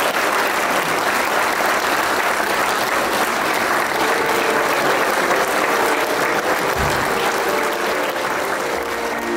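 Congregation applauding, a steady dense clapping throughout, with faint music coming in underneath about halfway through.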